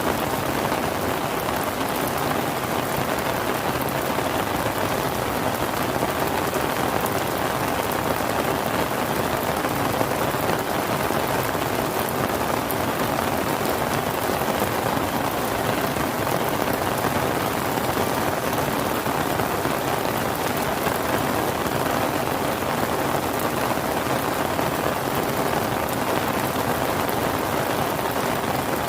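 Steady, heavy rain falling, an even dense patter of drops on surfaces with no change in strength.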